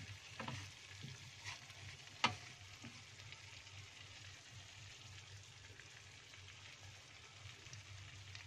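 Chicken rica-rica sizzling gently in a wok, its sauce cooked down until the liquid has evaporated. A wooden spatula knocks and scrapes against the pan a few times in the first three seconds, loudest about two seconds in. After that only the low steady sizzle is left.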